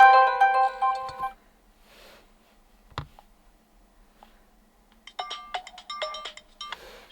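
Default ringtones played through a DOOGEE T10's speaker. One melody fades out about a second in, followed by a single click about three seconds in. From about five seconds another short ringtone of quick, plucked-sounding notes plays.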